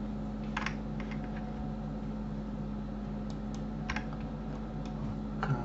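A handful of scattered clicks from a computer keyboard and mouse, over a steady electrical hum.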